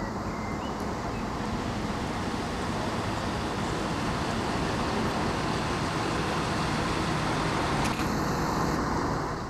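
Class 170 Turbostar diesel multiple unit pulling into the platform: a steady rumble of its diesel engines and wheels on the rails, growing a little louder as it draws near.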